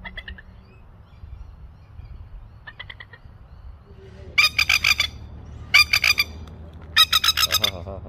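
Masked lapwing (spur-winged plover) calling: after a couple of faint short chatters, three loud bursts of rapid, sharp, stuttering calls in the second half, each lasting about half a second. A low steady hum runs underneath.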